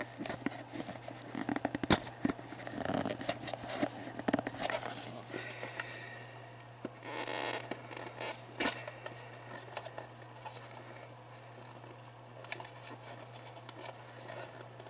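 Hands scratching, scraping and tearing at a sealed cardboard booster pack of pre-painted miniatures that is hard to open: irregular rustling and sharp clicks, busiest in the first half and thinning out after about nine seconds.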